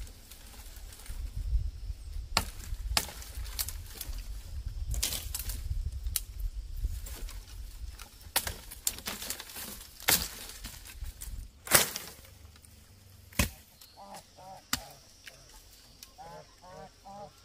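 Machete chopping into thin woody stems: sharp strikes at irregular intervals, the loudest about ten to twelve seconds in, over a low rumble during the first half. Near the end, geese honk in short runs of calls.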